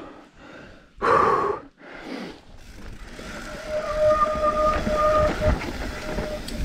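Mountain bike disc brakes squealing in a steady high tone that breaks off and resumes, from about halfway through, over the rumble of the tyres on a dirt trail, just after the rider says he has no brakes left. A short burst of noise about a second in.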